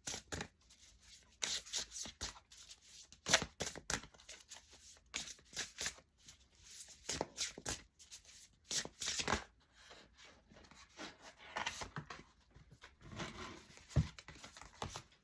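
A deck of oracle cards being shuffled by hand: irregular runs of quick card slaps and rubbing with short pauses, and a sharper tap near the end.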